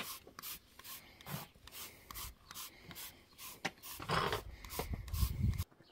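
Trigger spray bottle of fly spray squirting in a quick series of short hissing bursts, about two a second, as horses are sprayed against flies. A louder low rumble joins about four seconds in and stops abruptly near the end.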